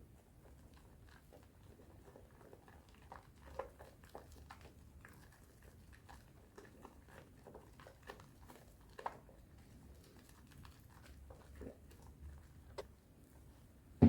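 Bar soap with washing powder being lathered by hand in thick wet foam: soft, irregular squishing and crackling of the foam. A single louder knock comes right at the end.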